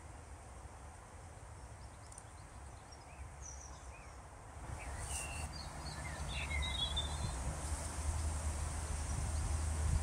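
Outdoor ambience: a steady low rumble that grows louder about halfway through, over a faint steady high hiss, with a few faint small-bird chirps scattered through the middle.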